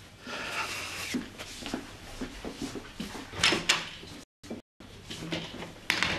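Wooden door being handled and opened, with a series of clicks and knocks, the two loudest about three and a half seconds in and another near the end. The sound cuts out briefly just after the middle.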